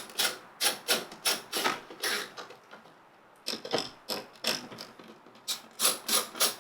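Hand ratchet wrench with a 10 mm socket clicking as it is swung back and forth to back out the speaker's bolts. It goes in three runs of quick clicks, about three a second, with short pauses between them.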